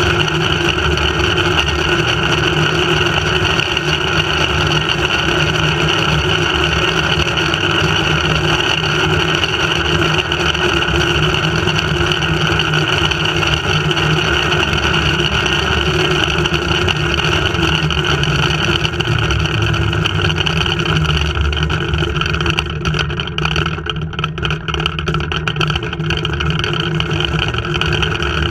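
Flying-fox zipline trolley running fast along its steel cable, a steady loud whirring rush of the pulleys mixed with wind on the frame-mounted camera. It eases slightly for a few seconds near the end.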